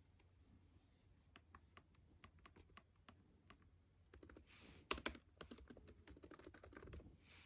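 Typing on the Lenovo IdeaPad 5 Pro 16's laptop keyboard: a run of quiet key clicks that gets quicker and denser about four seconds in.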